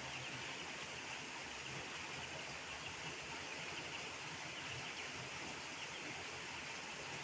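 Steady outdoor background noise: an even hiss with a constant higher-pitched band, with no distinct events.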